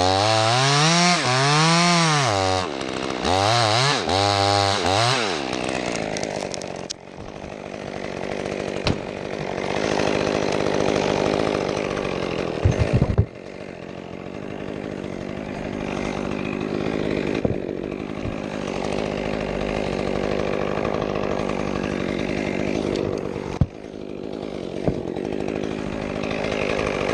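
Chainsaw revving up and down twice, its pitch rising and falling. It then runs on more steadily and more quietly for the rest of the time, with a few sharp knocks, the loudest about halfway through.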